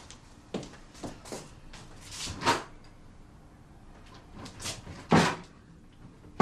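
A wooden kitchen drawer being yanked and rattled as it sticks: a string of short knocks and bangs with a longer scrape a little over two seconds in and the loudest bang about five seconds in. A fish slice caught inside is jamming it.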